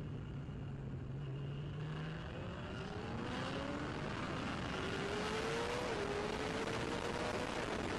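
Racing motorcycle engine heard from the bike itself, running at low revs through a slow corner, then accelerating hard with the pitch climbing. It dips briefly at a gear change about six seconds in and climbs again, with wind rush rising as the speed builds.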